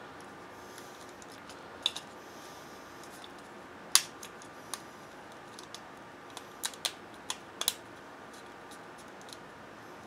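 Sharp clicks and taps of small parts of a smartphone being handled and pressed into place during reassembly. The loudest click comes about four seconds in, and a quick run of several comes about seven seconds in.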